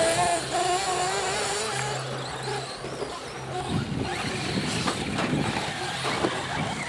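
Small nitro engines of radio-controlled race cars running, a high whine that rises and falls with the throttle near the start, then gives way to a rougher, noisier mix of several cars from about four seconds in.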